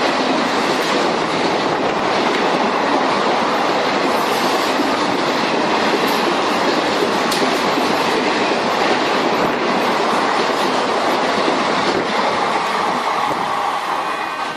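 Battery-operated Centy toy trains running on plastic track, a steady clattering whir of small motors and wheels that holds unchanged throughout.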